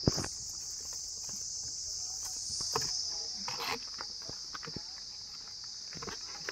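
Water buffaloes' hooves stepping on a dirt path and a stone slab: irregular thuds and scuffs, with a sharp knock right at the start. A steady, shrill insect drone runs underneath.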